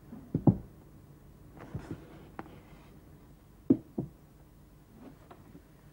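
Wooden knocks and clunks from the hinged top lid of an old wooden chest of drawers: two sharp knocks just after the start, a softer scrape and a click around two seconds in, two more knocks near four seconds, and faint taps after five.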